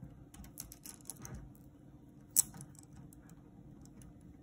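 Plastic pony beads clicking against each other as a beaded cuff is handled and its fishing line pulled tight. A run of small clicks comes in the first second and a half, and one sharper click about halfway through.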